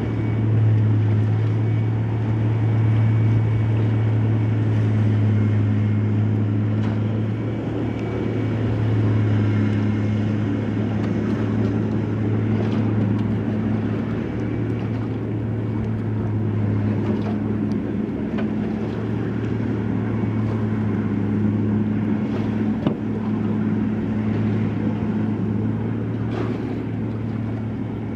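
Amphibious Combat Vehicle's engine running with a steady low hum as it swims through the surf, with water rushing around the hull.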